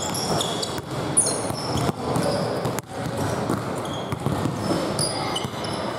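A basketball being dribbled on a hardwood gym floor, several separate bounces, with brief high-pitched sneaker squeaks from players moving on the court.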